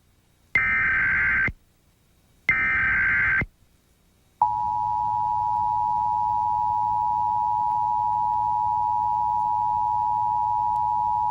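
Emergency Alert System test: two one-second bursts of warbling digital header tones with short silences between, then, about four seconds in, the steady two-tone EAS attention signal begins and holds.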